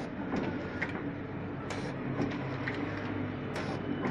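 Snack packing machine running, a steady hum with a sharp clack about once a second as it cycles.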